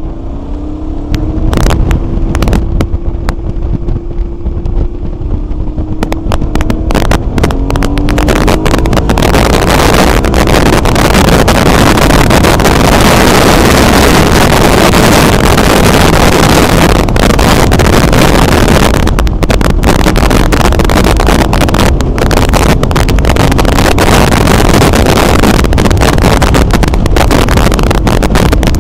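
Motorcycle engine pulling and shifting up through the gears, soon buried under loud, steady wind rush on the microphone at speed in a strong wind.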